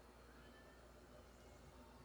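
Near silence: only a faint background hiss between sound effects.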